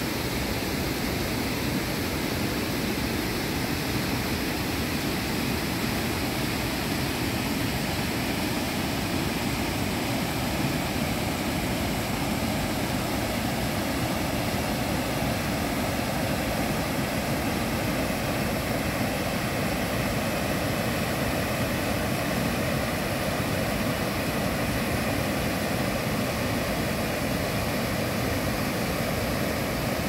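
Rain-swollen mountain stream rushing steadily over rocks and spilling over a low concrete weir, a constant wash of water noise with no pauses.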